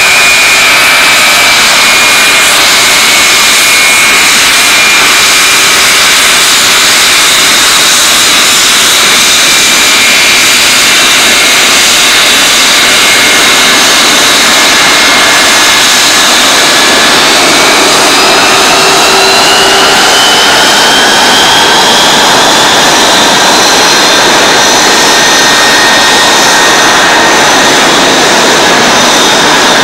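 Four Pratt & Whitney JT3D turbofans of a Boeing 707-320C running loud while the jet taxis: a high whine over a steady rush. About two-thirds of the way through, the whine rises in pitch as the engines spool up to move the aircraft.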